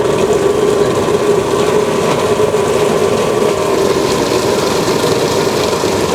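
Electric blender running at a steady speed, chopping raw squid into a seafood paste.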